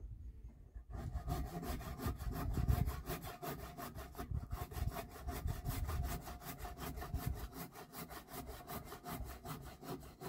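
Hand saw cutting through a small log of firewood, in quick, even back-and-forth strokes that start about a second in and keep going.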